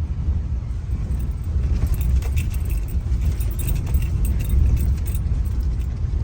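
Car interior on a rough, dusty road: a steady low rumble of tyres and engine, with a light jingling rattle, like keys or loose metal, from about two to five seconds in.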